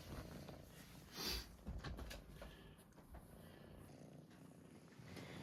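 A cat purring softly, with a brief rustle about a second in.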